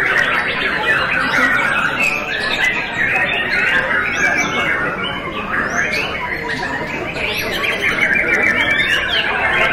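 Many caged songbirds singing at once: a dense, continuous chorus of overlapping chirps, trills and whistled phrases.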